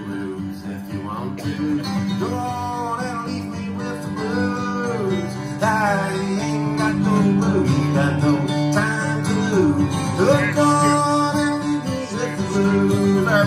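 Steel-string acoustic guitar played steadily in a live country-folk song, with a single voice singing or vocalising over it at times.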